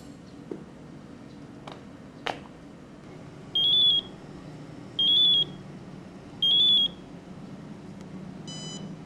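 Mobile phone ringing: three high electronic beeps, each just under a second long and about a second and a half apart, then a short beep near the end as the call is answered.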